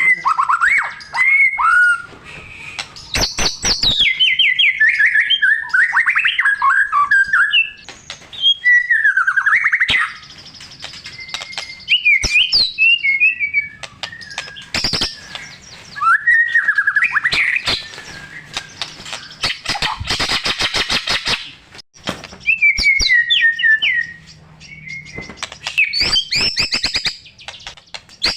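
White-rumped shama singing a long, varied song, its song full of mimicked phrases of other birds. Gliding whistled phrases alternate with bursts of rapid clicking rattles, in phrases of a few seconds separated by short pauses.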